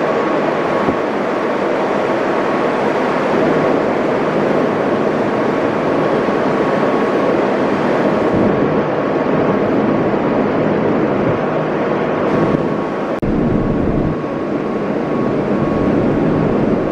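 Steady drone of a ferry under way, engine and machinery noise with a faint steady whine through it. About thirteen seconds in, wind starts buffeting the microphone in low gusts.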